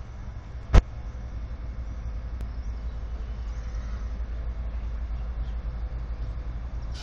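Pakistan Railways GEU-40 diesel locomotive running with a steady low rumble while it shunts slowly with hopper wagons. A single sharp click comes a little under a second in.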